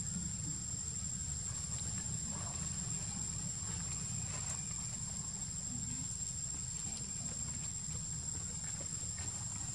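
Steady high-pitched drone of insects, with a constant low rumble underneath and a few faint ticks and rustles.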